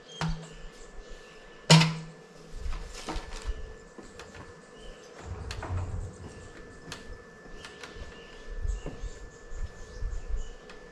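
A PVC pipe being handled, knocking a couple of times with a short low ring, the sharpest knock about two seconds in. Then dull, irregular thumps as a wooden ladder is climbed with the pipe. A steady insect buzz runs underneath.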